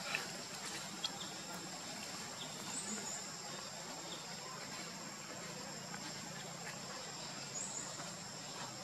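Faint outdoor ambience dominated by a steady high-pitched insect drone, with a soft click about a second in and two short high chirps, one about three seconds in and one near the end.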